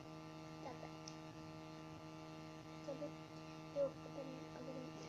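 Steady electrical mains hum with several even tones. Brief, faint voice sounds come through about a second in and again in the second half.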